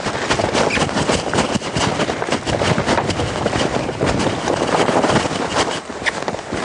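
Hoofbeats of two horses galloping on the loose dirt of a round pen: a rapid, irregular run of thuds over a steady rushing noise.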